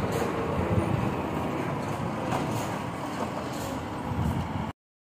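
Road traffic going by on the street, a steady run of tyre and engine noise that includes a small truck towing a flatbed trailer. The sound cuts off suddenly near the end.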